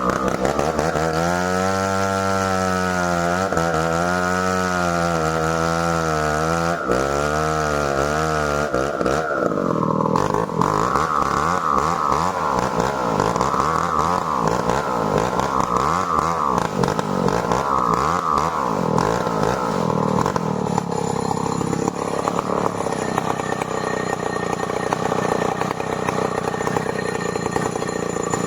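Stihl 070 two-stroke chainsaw running at high speed, cutting merbau timber. Its engine note holds steady for the first several seconds, then wavers up and down about every two seconds, and settles to a steadier, lower note in the last several seconds.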